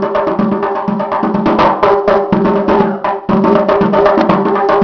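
Music with a fast, steady percussion beat over held instrumental tones, briefly dropping out just after the middle.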